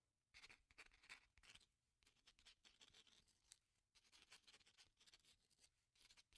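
Faint scratching of a pen writing on paper, in irregular strokes with short pauses.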